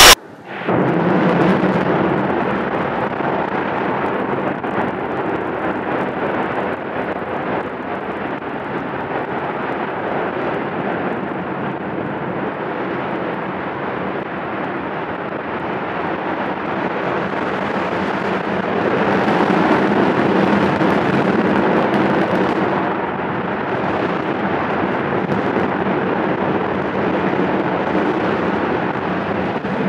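Steady rumbling roar of the Nuri rocket's first stage, four clustered 75-tonne-class kerosene–liquid-oxygen engines firing together in a 300-tonne-class static fire, heard from far off. The roar swells a little louder and brighter for a few seconds a little past halfway.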